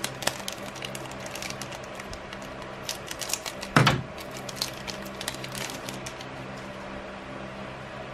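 Foil Magic: The Gathering booster pack wrapper crinkling and crackling in the hands as it is opened, in many small clicks, with one louder crackle just before four seconds in; the handling grows quieter near the end as the cards come out. A steady low hum runs underneath.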